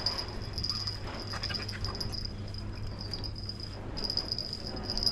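Insects, likely crickets, trilling steadily in a high, pulsing chirr that drops out briefly near the four-second mark, over a steady low hum. A few faint high calls sound about a second in.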